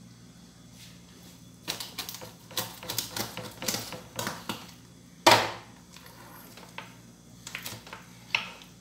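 Kitchen knife cutting open a whole chicken on a wooden cutting board: a run of quick sharp clicks and taps as the blade works through and strikes the board, with one louder knock about five seconds in and a few more taps near the end.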